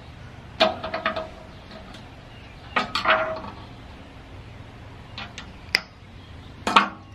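Metal hand tools (screwdrivers, pliers, hex keys) clinking and clattering against a painted metal machine casing as they are picked up and set down, in four short bursts of clinks.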